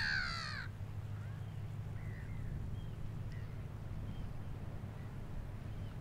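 A large bird gives one loud, harsh call right at the start, following two similar calls just before; a few faint short bird calls follow, over a steady low rumble.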